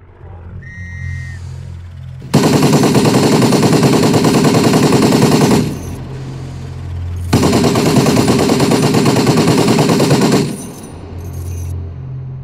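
Supermarine Spitfire Mk1's wing machine guns firing on the ground at a target for convergence testing (gun harmonisation): two long bursts of rapid fire, each about three seconds, separated by a pause of under two seconds.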